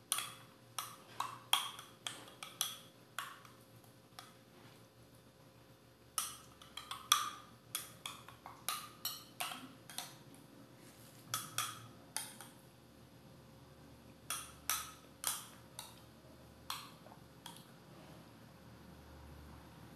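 Metal spoon clinking and scraping against a glass goblet as fruit salad is scooped out: quick sharp clicks in three runs separated by pauses of a few seconds.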